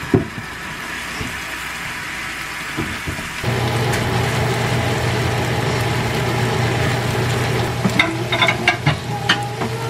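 A chopped chili mixture sizzling in a square nonstick egg pan under a splatter screen. About three and a half seconds in, a steady low hum joins as cooked rice is tipped into the pan and stirred, and near the end a spatula scrapes and knocks against the pan several times.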